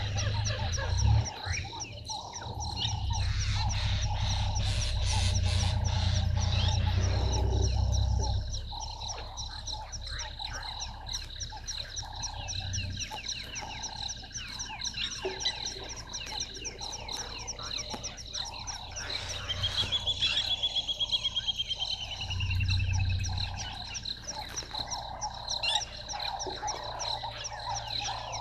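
Frogs calling in a steady dusk chorus at a waterhole: a dense run of rapid clicks and croaks with a few steady high trills. A low rumble from about three to eight seconds in, and briefly again later, is the loudest thing, and a falling trilled call sounds about two-thirds of the way through.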